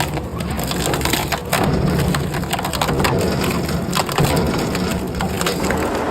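A heavy forestry machine's diesel engine drones steadily under a dense run of irregular cracking and splintering as wood is crushed and broken.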